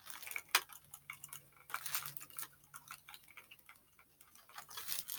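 Faint, irregular light clicks and taps of a plastic toy being handled.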